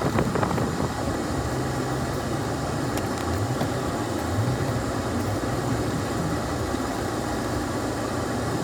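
Motor vehicle engine running at low revs, its pitch shifting slightly a few times over a steady rumble.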